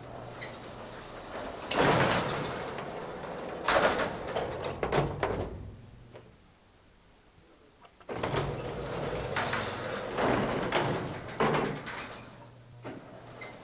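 Elevator doors sliding with a rattling rumble and several sharp metallic clanks, in two separate runs: the first begins about two seconds in and dies away, the second starts a couple of seconds later. A low steady hum runs underneath.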